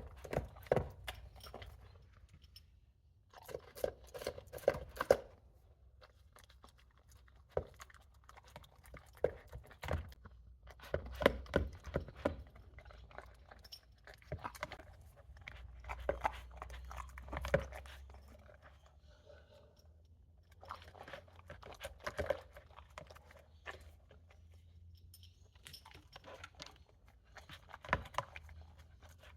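A dog eating and chewing its food, making bursts of sharp crunching clicks with short pauses between them.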